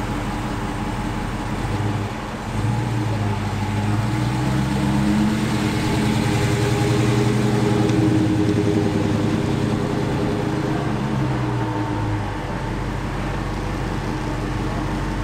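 A 2020 Dodge Challenger R/T's 5.7-litre HEMI V8 running through its stock exhaust, mid mufflers still in place, as the car pulls slowly across the lot and into a shop bay. The engine note swells and shifts in pitch a few seconds in, is loudest mid-way, and eases off after about twelve seconds.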